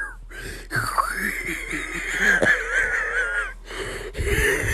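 A person's high-pitched wheezing laugh: a squeaky, wavering tone that starts about a second in and is held for about three seconds.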